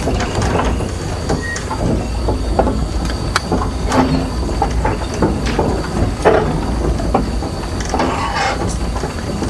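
Komatsu crawler excavator travelling on its steel tracks: the diesel engine runs with a steady low rumble while the track links clank irregularly as it rolls.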